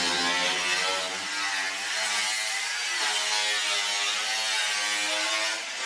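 Angle grinder with a cutting disc cutting through the car's sheet-metal bodywork: a continuous high hissing whine whose pitch sags and recovers as the disc loads up in the cut.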